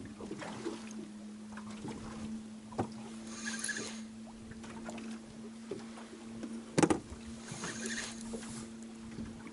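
Choppy river waves splashing and slapping against the hull of a small motorboat over a steady low hum, with a sharp knock against the boat about seven seconds in.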